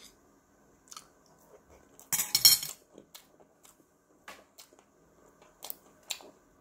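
Eating utensils clicking and clinking against a dish while eating, with scattered short clicks and one louder clatter about two seconds in.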